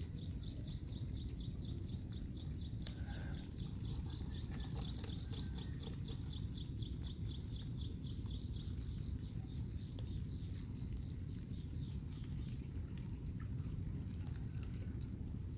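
Outdoor ambience: a steady low rumble with a rapid series of short, high chirps, about four a second, that fade out in the second half.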